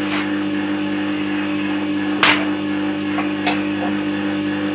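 Record Power WG200 wet stone sharpener running, its motor giving a steady hum as the stone turns in its water trough. A sharp knock about two seconds in and a few lighter clicks a second later come from handling the chisel and its jig.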